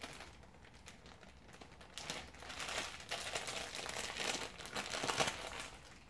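Plastic bag crinkling and rustling in irregular bursts as a part is handled inside it, busiest from about two seconds in.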